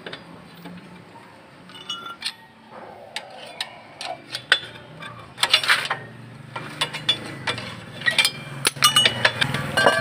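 Metallic clinks and knocks from a rear brake drum being worked loose off its hub and pulled away, with brief ringing after the knocks. They come scattered, busiest in the second half.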